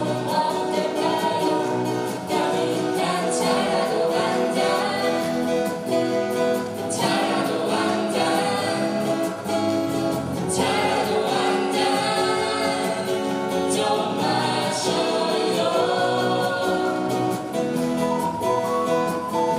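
Live acoustic band: several voices singing together over strummed acoustic guitars, electric bass and djembe. Near the end an ocarina comes in with a high melody line.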